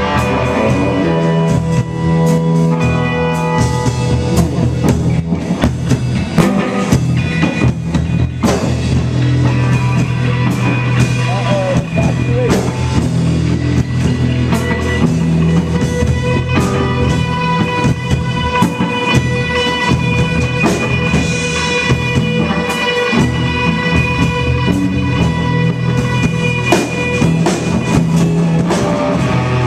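Rock band playing live: guitar over a drum kit, with sustained chords and frequent drum and cymbal hits.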